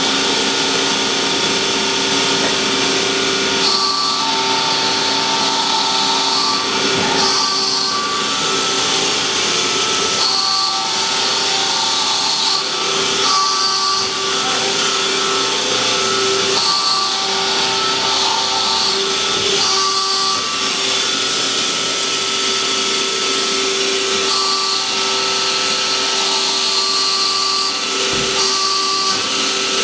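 Hydraulic power unit of a 1999 Strippit LVD 165-ton CNC press brake running with a steady hum and whine. Brief higher-pitched whines come and go every few seconds.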